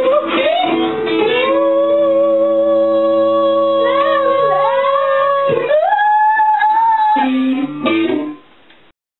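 Freely improvised music of long held notes with sliding swoops in pitch, played on string instruments including a cello, over a low sustained drone. It is a group attempt to imitate the sounds of the rainforest. The music breaks off shortly before the end.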